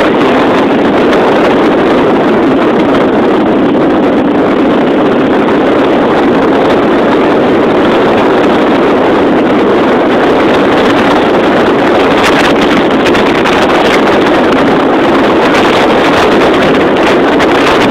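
Loud, steady rush of wind over the microphone of a moving motorcycle, mixed with the noise of the motorcycle running at cruising speed.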